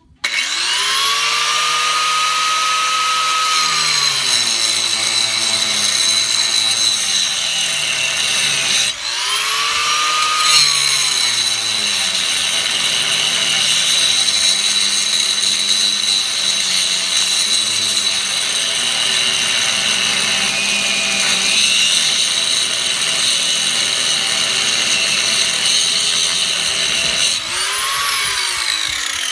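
Corded electric angle grinder grinding a steel wheel stud on a car's front hub. It spins up with a rising whine, drops in pitch as the disc bites into the metal, stops briefly and spins up again about a third of the way in, then runs on and winds down near the end.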